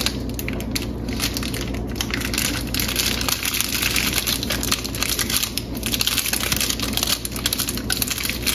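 Plastic papad packet filled with batter crinkling and rustling in the hands as a rubber band is wound around its open end to tie it shut.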